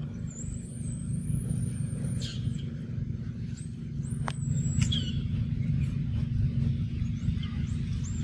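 Outdoor ambience: a steady low rumble with thin, high-pitched whistled calls over it. One call lasts nearly two seconds, a second comes about four seconds in, and a few short sharp clicks fall in between.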